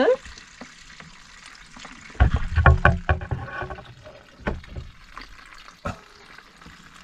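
Evapo-Rust rust remover pouring from a plastic jug through a funnel into a plastic bag, a steady faint trickle. From about two to three and a half seconds in there is a louder spell of plastic knocks and rustles as the jug and bag are handled, with single clicks later.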